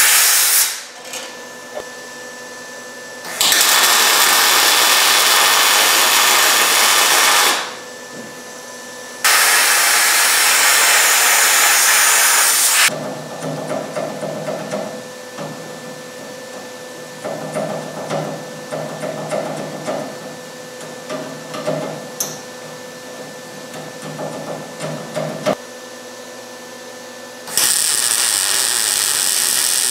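Three loud, steady bursts of a few seconds each, the last of them a MIG welder laying a bead to weld a 14-gauge steel bumper brace bracket to the thinner trunk pan and frame rail. Quieter clatter and knocks of handling come between the bursts.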